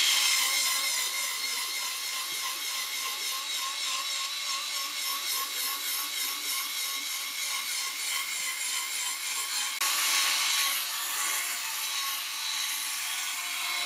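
Electric drill spinning a polishing pad loaded with compound across a glossy plastic netbook lid: a steady motor whine over the rubbing of the pad on the plastic, a little louder about ten seconds in.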